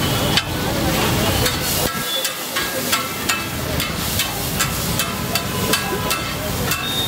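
Onions and tomatoes sizzling in oil on a large flat griddle (tawa), with a metal spatula scraping and tapping on the griddle surface in quick, irregular clicks.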